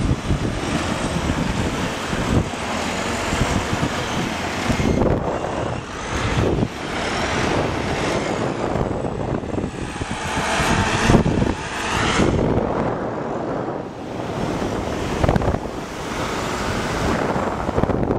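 Wind rushing over a camera microphone carried aloft under a parasail, a steady buffeting roar that swells and eases in gusts every few seconds.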